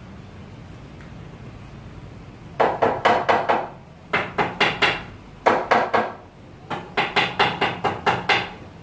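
Hammer blows on a wooden table frame, in four quick runs of several strikes a second, beginning about two and a half seconds in.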